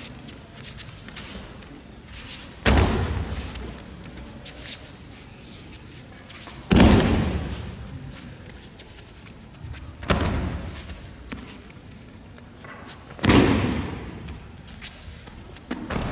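Aikido breakfalls: the thrown partner hits the tatami mats four times, each landing a sudden thud and slap that echoes through a large hall, with lighter shuffles and taps of feet and uniforms on the mat between throws.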